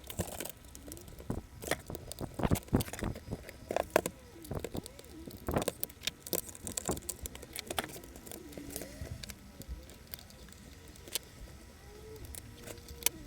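Clicks and knocks of hands and tools working on an old laptop's plastic casing and parts during disassembly, densest in the first six seconds. From about eight seconds in, a low wavering sound rises and falls in pitch.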